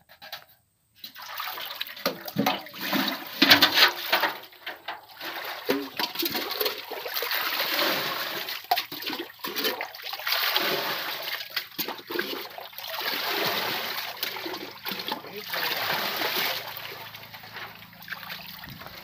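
Water being scooped up and poured out of a metal pot, splashing down again and again in repeated surges, as a shallow pool is bailed out by hand.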